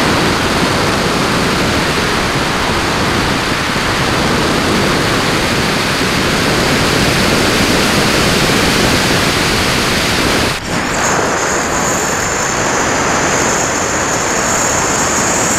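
Wind rushing over the onboard camera of a Cularis RC glider in flight, a loud steady hiss. About ten and a half seconds in it dips briefly, and then a steady high-pitched whine joins the rush.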